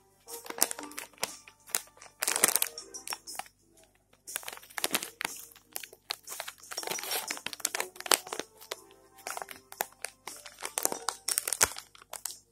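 Plastic Dreamies cat-treat pouch crinkling in irregular bursts of sharp crackles as a kitten bites and paws at it.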